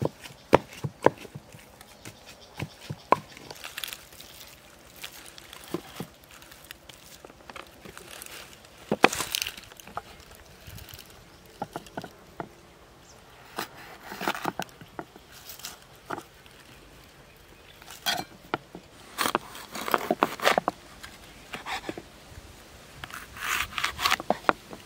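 A knife cutting green bell peppers on a wooden chopping block: short bursts of crisp crunching as the blade goes through the flesh, with sharp knocks of the knife against the wood, most of them in the first few seconds.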